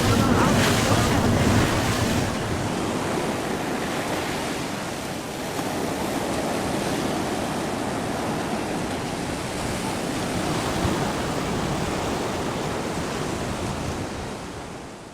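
Steady rushing noise of sea surf and wind, with wind buffeting the microphone; it is louder for the first couple of seconds and fades out near the end.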